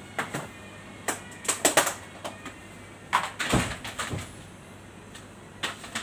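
Irregular clatter of food-prep handling: light knocks and clicks of containers and trays on a stainless steel counter, with a heavier thump about three and a half seconds in.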